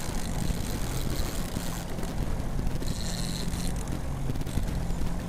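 A fishing boat's outboard motor running steadily at trolling speed, a constant low hum with a wash of noise over it. A brief higher-pitched whir comes in about three seconds in.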